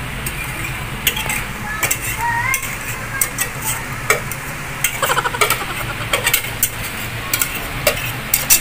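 Wire whisk scraping and tapping against the inside of a metal pot, scooping out thick creamy dressing, with many irregular clicks and clinks over a steady low hum.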